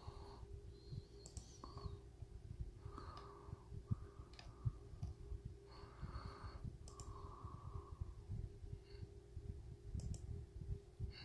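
Scattered soft clicks of a computer mouse while browsing, over a steady low hum and a low rumble.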